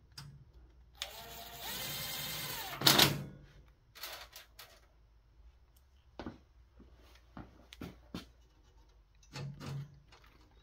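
A cordless drill/driver whirs for about two seconds, driving a screw into a metal rack rail. A loud clack follows just after, then a few lighter metallic clicks.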